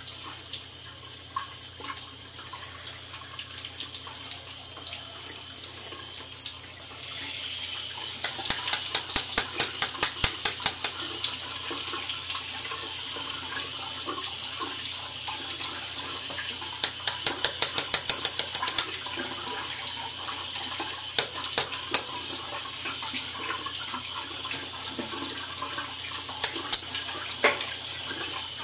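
Bathroom tap running into the sink, a steady hiss that gets louder about seven seconds in. Over it come several runs of quick, evenly spaced sharp strokes, about five a second, from shaving at the sink.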